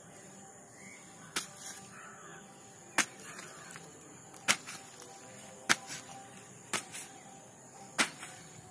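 A pipe punched down through plastic mulch film into the soil bed to make planting holes: a sharp pop each time it pierces the sheet, six times at about one and a half second intervals.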